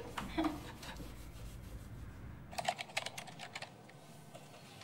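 Typing on a computer keyboard: a quick run of keystrokes lasting about a second, a little past halfway through.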